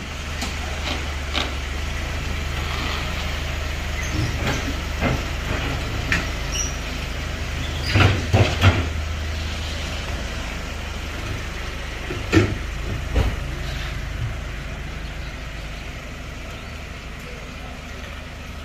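Hyundai Porter II one-ton truck's engine running at low speed as the truck drives off, a steady low drone that fades near the end. A few sharp knocks and clacks sound around the middle.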